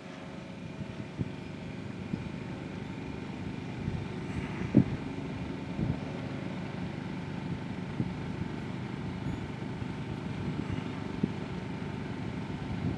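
Electric F3A aerobatic model plane, its Plettenberg Orbit 30-10 brushless motor and SingleDrive turning the propeller, heard from far off as a faint steady whine. It sits under a low rumble with scattered thumps, the strongest about five seconds in.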